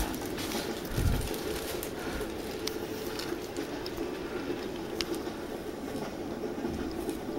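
A steady mechanical rumble and hum, with a soft low thump about a second in and a few faint clicks.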